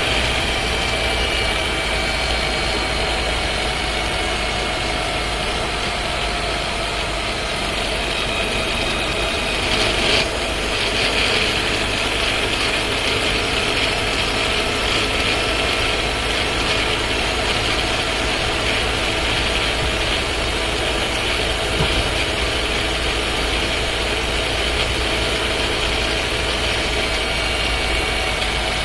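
Skoda Scala's 1.5 TSI engine and DSG dry-clutch drivetrain running, heard from inside the cabin as a steady hum. A short knock comes about ten seconds in.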